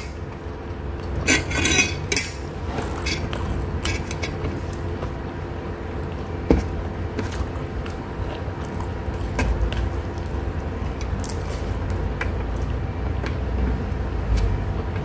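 Eating sounds at close range: a metal spoon clinking against a plate several times in the first two seconds and once sharply about six and a half seconds in, then softer sounds of rice being gathered by hand. A steady hum runs underneath.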